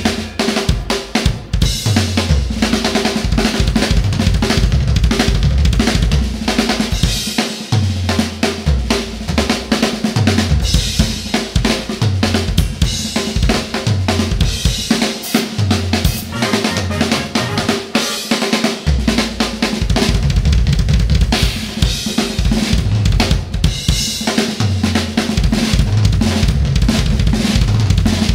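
Live drum kit playing a busy funk groove: kick, snare with rimshots, hi-hat and cymbals on a DS Rebel Series kit with UFIP cymbals. Low bass notes run under the drums and drop out briefly about two-thirds of the way through.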